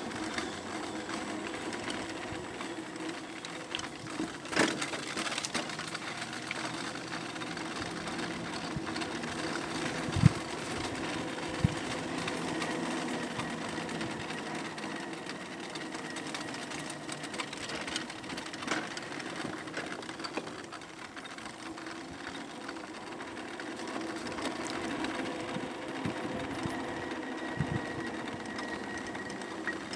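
Aostirmotor S17 electric bike under way: the hub motor whines steadily over tyre and road noise. A few sharp knocks from bumps cut through, the loudest about ten seconds in.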